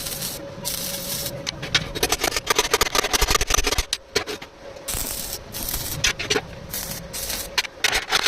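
Metalwork on a steel door: irregular bursts of scraping and crackling with quick rattling clicks between them, over a steady machine hum.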